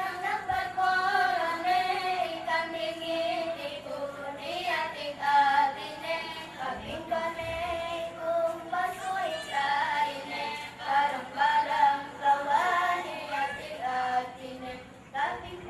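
Young children singing a melody in high voices, with long held notes.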